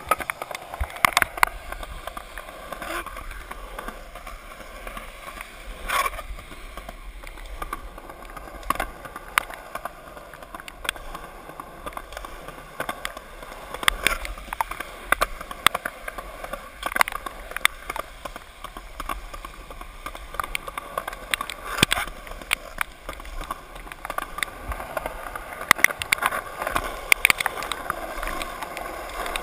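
Skateboard wheels rolling over wet pavement, a steady watery hiss, with frequent sharp clacks and knocks from the board.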